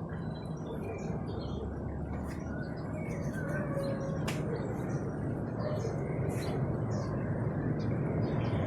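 Small birds chirping over a low, steady rumble that slowly grows louder: a distant aircraft approaching.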